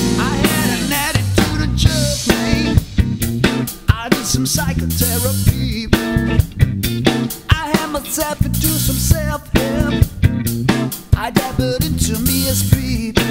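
Funk trio playing a groove together: electric guitar, electric bass guitar and a drum kit, with many sharp drum strokes over the bass and guitar lines.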